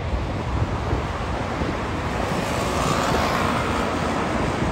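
A vehicle passing by: a rushing sound that swells about halfway through and then eases, over a low rumble of wind buffeting the microphone.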